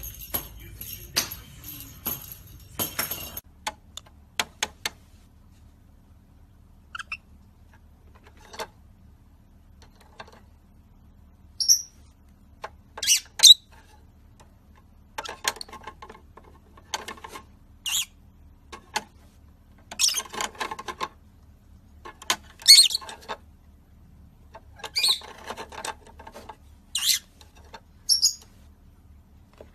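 A jingling rattle for about the first three seconds, then a pet bird giving short, high chirps and squawks, singly or in pairs every second or two, louder from about twelve seconds in.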